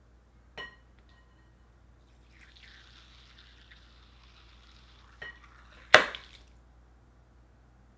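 Scissors snipping at a balloon filled with liquid soap: a short snip with a light metallic ring about half a second in, a faint hiss from about two seconds, and a second snip about five seconds in. About six seconds in comes the loudest sound, a sharp pop as the balloon bursts and the soap splashes into a glass bowl.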